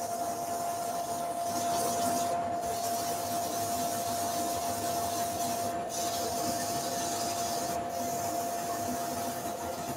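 Abrasive paper hissing against a sycamore platter spinning on a wood lathe, hand sanding at 240 grit, over the steady whine of the running machinery. The hiss briefly drops out three times as the paper lifts off the wood.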